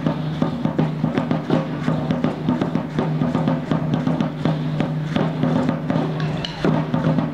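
Drum music for Aztec-style dancing: a steady drumbeat with many sharp clicking strikes over a steady low hum.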